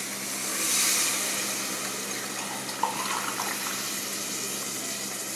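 Water poured from a glass into an aluminium pressure cooker of simmering rajma curry, splashing loudest about a second in, then settling to a steady hiss.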